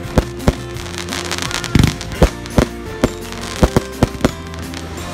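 Fireworks going off in a rapid irregular string of about a dozen sharp bangs, some in quick doubles, with crackling between them. Music with held notes plays underneath.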